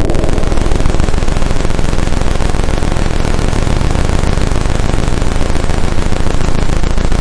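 Synthesizer noise texture from a Roland AIRA Compact S-1: a dense, harsh wash of noise with rapid crackling over a low rumbling drone.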